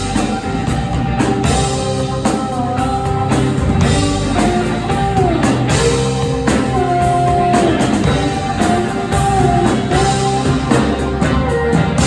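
Live rock band playing an instrumental passage: steady drum-kit beats under a lead line whose notes bend up and down.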